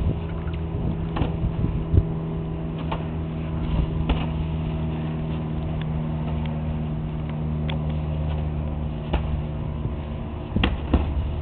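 Scattered sharp smacks of padded boxing gloves during sparring, over a steady low mechanical hum that sets in about a second and a half in.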